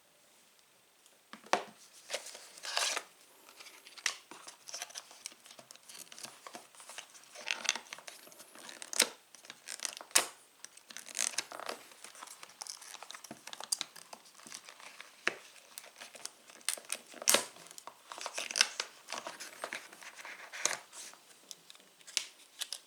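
Packaging being handled and unwrapped: irregular crinkling, rustling and tearing of plastic and paper, with scattered sharp clicks and taps.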